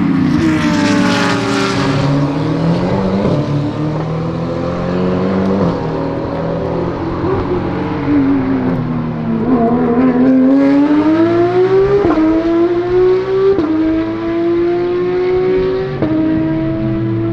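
GT3 race cars running at speed. One passes with falling pitch near the start, and later a car accelerates with its engine note climbing, broken by upshifts about 12, 13.5 and 16 seconds in.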